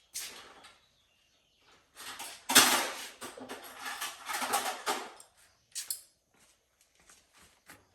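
Hand tools clattering and scraping as someone rummages for a pair of pliers. The loudest clatter comes about two and a half seconds in, with a few lighter clicks near the end.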